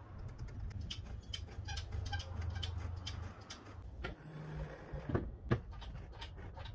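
Light irregular clicks and small creaks over a low hum, with a few sharper knocks about four to five and a half seconds in, from a Commodore's rear axle being worked on a transmission jack to cycle its newly tacked four-link suspension and check it for binding.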